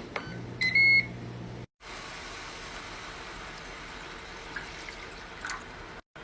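A kitchen appliance beeps: two short electronic beeps about half a second in, over a low hum. After a cut, a steady, even hiss follows.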